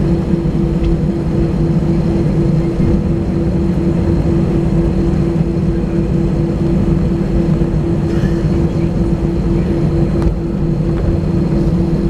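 Cabin noise of a Ryanair Boeing 737-800 taxiing: the jet engines running steadily at low thrust, a constant hum with a low rumble underneath, with no spool-up.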